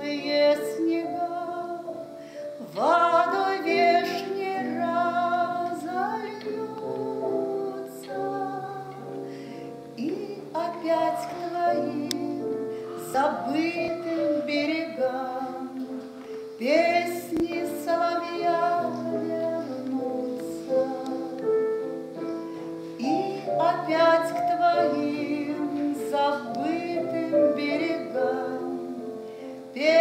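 A woman singing long phrases with vibrato, over piano accompaniment.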